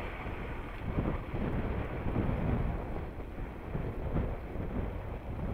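Jeep Grand Cherokee running at low speed on packed snow, a steady low rumble mixed with wind buffeting the microphone.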